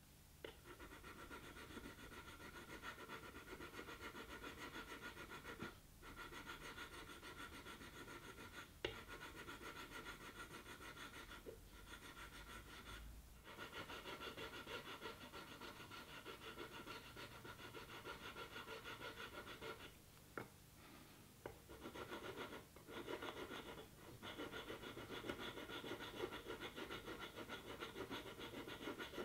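Quiet, rapid hand rubbing and scraping of a thin wooden stick against the splinted wood at the broken headstock joint of a guitar neck, breaking off briefly a few times, with one sharp click about nine seconds in.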